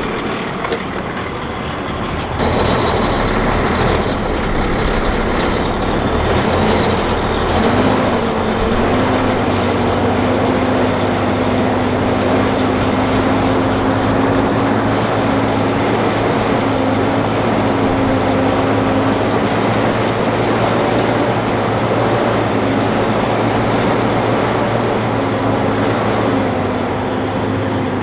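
Loaded grain semi truck's diesel engine pulling under load in mud. It picks up about two seconds in, rises in pitch around eight seconds, then runs steadily.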